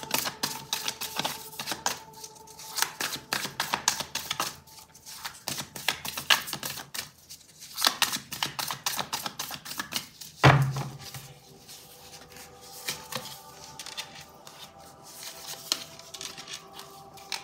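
A deck of tarot cards being shuffled by hand: a rapid, uneven run of crisp card clicks and flutters, with one louder thump about ten and a half seconds in. Faint background music runs underneath.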